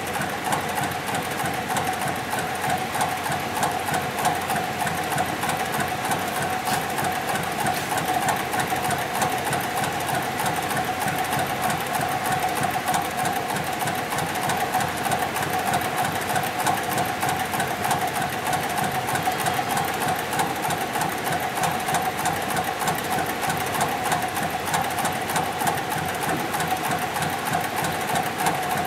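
Hightex computerized heavy-duty sewing machine running steadily while stitching through doubled twisted rope: a fast, even rhythm of needle strokes over a steady mechanical tone.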